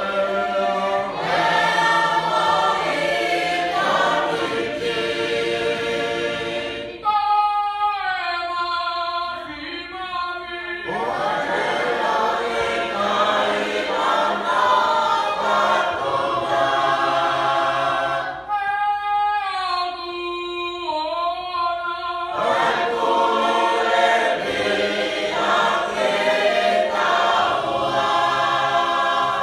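Tongan hiva usu: a youth choir sings an a cappella hymn in parts. Twice a single voice carries a line alone for a few seconds before the whole choir comes back in.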